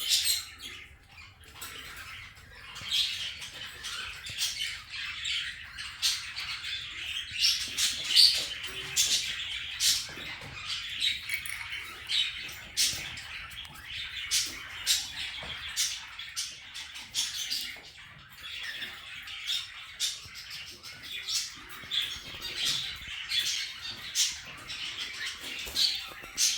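Kakariki parakeets chattering in short, irregular chirps and squawks, mixed with sharp clicks.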